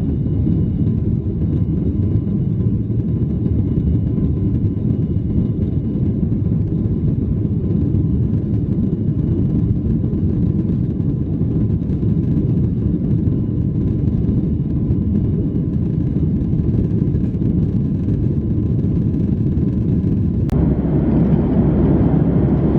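Steady low rumble of a Boeing 737-800's jet engines and airflow heard inside the passenger cabin. A sharp click comes near the end, after which the noise turns brighter.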